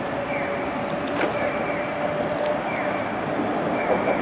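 Steady street traffic noise as an Okayama Electric Tramway 7200-series tram approaches along the road. A short, high, falling chirp repeats about once a second.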